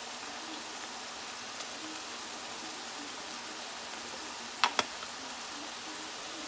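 Browned ground meat sizzling steadily in a skillet, with two sharp clicks close together a little over halfway through.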